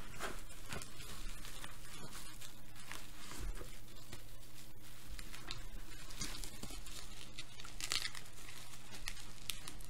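Packing material being unwrapped by hand from a boxed Funko Pop vinyl figure: crinkling and rustling with scattered light clicks, loudest about eight seconds in.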